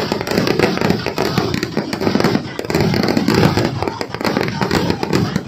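Fireworks going off in a rapid, dense crackle of many small bangs without a break.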